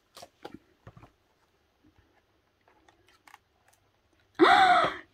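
Soft paper rustles and light taps as a photobook and its cards are handled. Near the end comes a short, high, excited vocal exclamation, the loudest sound.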